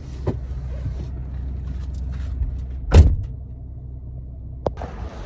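Camper van driving, heard from inside the cabin: a steady low rumble of engine and road, with a few light rattles and one sharp loud thump about three seconds in.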